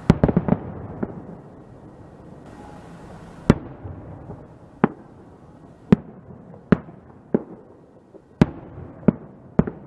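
Aerial firework shells bursting: a rapid volley of bangs right at the start, then single sharp bangs about once a second.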